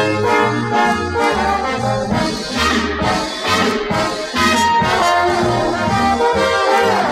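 Brass-led orchestral easy-listening music with trombones and trumpets over a bass line moving from note to note, played back from a 1960 stereo LP.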